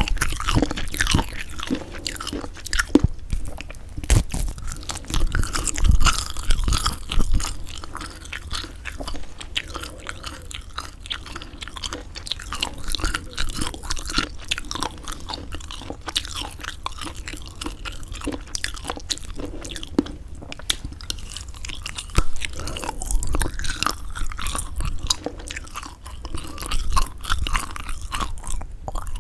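Close-miked chewing and biting of semi-dried squid: a steady run of small crackles and clicks, with louder bites now and then.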